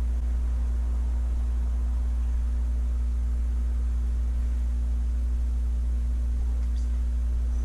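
Steady low droning hum with a faint higher tone above it, even and unbroken throughout.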